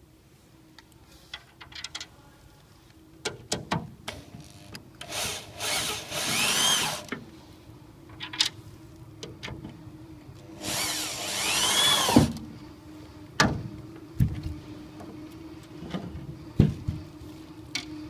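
Power drill driving screws while a resin chiavari chair is assembled. It runs twice for about two seconds each time, its whine rising and falling, with sharp knocks from the chair parts between the runs.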